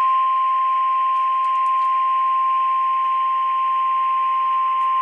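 NOAA Weather Radio warning alarm tone: a single steady high-pitched tone held without a break over a hiss of radio static. It is the alert that a warning broadcast is about to follow.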